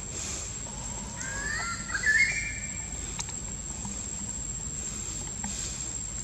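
A short animal call about a second in, a few quick rising whistle-like notes that climb in pitch, over a steady high-pitched whine.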